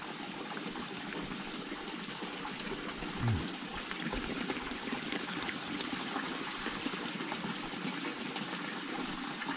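Water from a mineral spring running steadily from the fountain spout into its stone trough.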